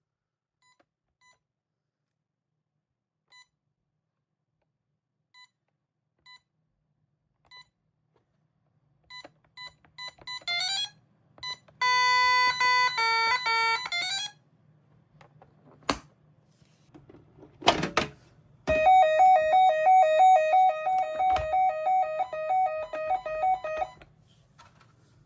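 Gardtec 591 intruder alarm system's keypad and extension speaker: short single beeps a second or two apart, then quicker beeps and a loud two-note pattern. After a couple of knocks comes a loud warbling two-tone alarm sound that stops about a second before the end.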